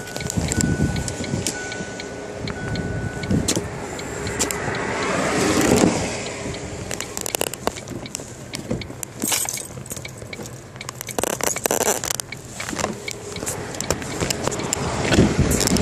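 Highway traffic passing close by, one vehicle swelling past about six seconds in and another near the end, with many sharp clicks and jangling rattles from handling close to the microphone.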